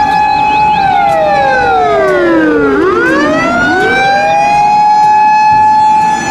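Japanese fire engine siren sounding. It holds a steady wail, then falls away over about two seconds and winds back up to the same pitch, with overlapping wails a moment apart.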